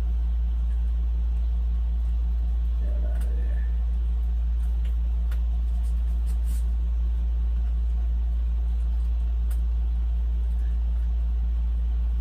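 A steady low hum, with a few faint clicks from foam airplane parts being handled.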